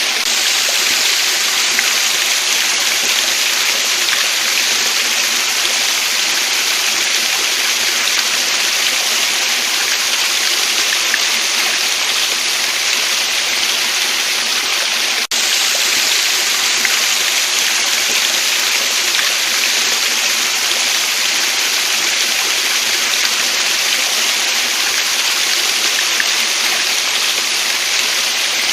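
Waterfall and stream water rushing steadily, an even hiss with no let-up. A momentary dropout about halfway through breaks it for an instant.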